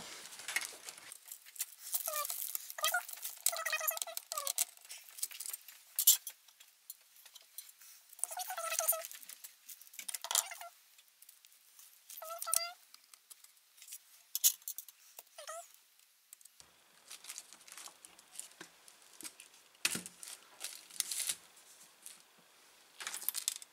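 An LCD monitor panel being taken apart with a screwdriver and by hand: light clicks and scrapes of screws, metal casing and plastic, with several short squeaks in the first sixteen seconds.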